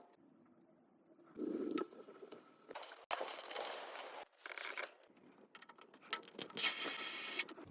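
Several short bursts of crinkling and scraping handling noise, with quiet gaps between them.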